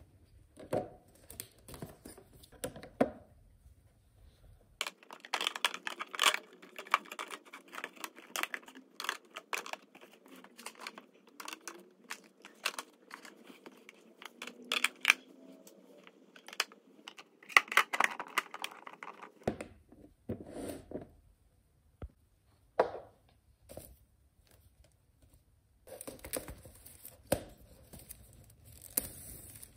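Irregular small clicks, taps and rustling from objects being handled, with some tearing and crinkling sounds.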